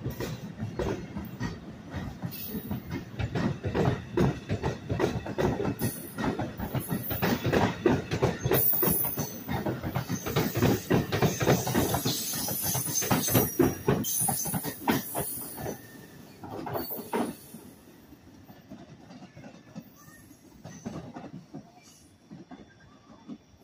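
Bilevel commuter coaches of an NJ Transit push-pull train rolling past, their wheels clacking rapidly over the rail joints, with a high wheel squeal through the middle. The sound fades away after about sixteen seconds as the cab car recedes down the line.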